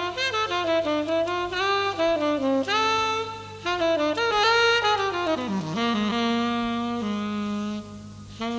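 Jazz saxophone playing a single line: quick runs that climb and fall, then long held low notes from about six seconds in, with a short drop in level near the end.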